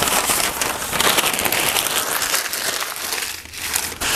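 Newspaper being crumpled and stuffed into a wood cookstove's firebox to lay a fire: a dense crackling rustle that pauses briefly a little past three seconds in.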